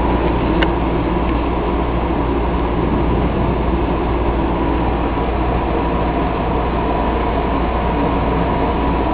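A dog growling, a low continuous rumble that does not break: a warning growl aimed at the mother cat.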